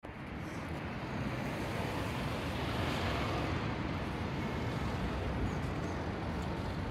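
Steady outdoor background noise, an even low rushing with no engine note in it.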